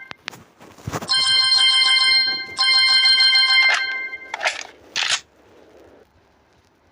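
Electronic toy pistol firing its sound effect: a click, then two ringing electronic tones of about a second each, followed by two short hisses.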